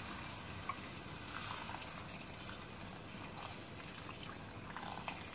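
Water pouring from a jug into a metal pot of rice in tomato sauce, trickling and splashing unevenly.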